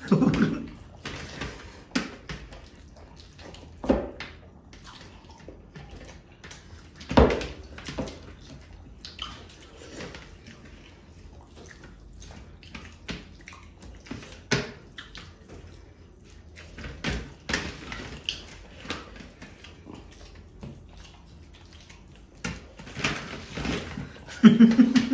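Wet squelching and smacking of rice and curry being squeezed and mixed by hand on steel platters, with eating mouth sounds and irregular sharp clicks and smacks of fingers and food against the metal, a few of them louder than the rest.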